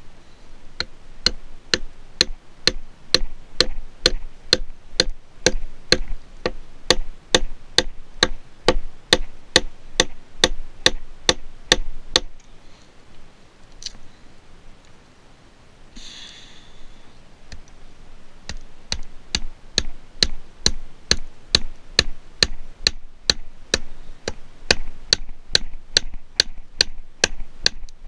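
Gränsfors Bruks mini hatchet chopping a thin cedar stick against a driftwood log: quick, light, even strokes, about three a second, with a pause of several seconds near the middle.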